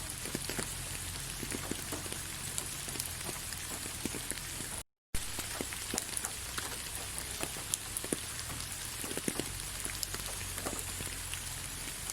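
Steady rain falling on leaves: an even hiss full of scattered sharp drop patters. The sound cuts out completely for a moment about five seconds in, then resumes.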